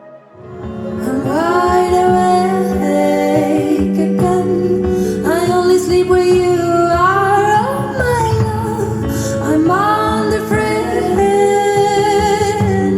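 A song with a woman singing over bass and drums, played back as a sound sample through a Marantz Model 10 amplifier and Bowers & Wilkins 805 D4 Signature speakers. It comes in about half a second in, after a quiet ambient lead-in.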